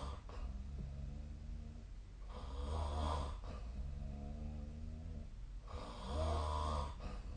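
A person snoring in sleep: a loud rasping snore about every three seconds, two full ones plus the tail of another at the start, with quieter breathing between.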